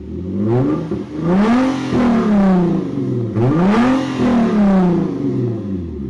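Engine revved twice, climbing in pitch to a peak and then falling away each time; the second rev rises more sharply.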